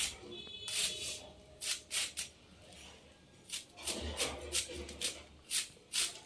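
Knife slicing through a hand-held head of cabbage: a run of crisp cuts about two to three a second, with a pause of about a second midway.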